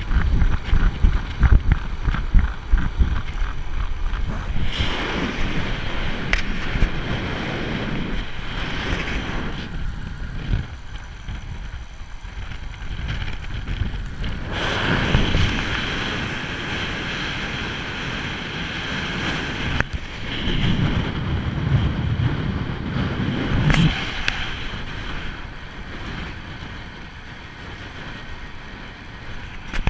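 Wind rushing and buffeting over the microphone of a GoPro mounted on a road bike riding at speed, swelling and easing as the rider's speed and position change.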